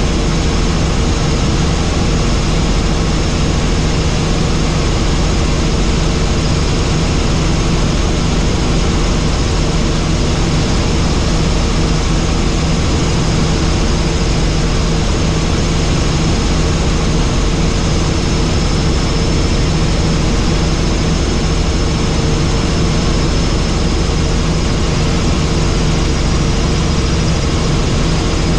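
Helicopter engine and rotor running steadily: a constant heavy drone with a steady low hum and a thin high whine, the level never changing.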